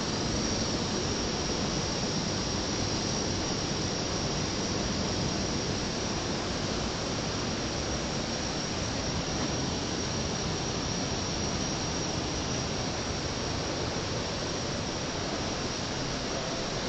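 Steady, even hiss with a thin high-pitched whine above it.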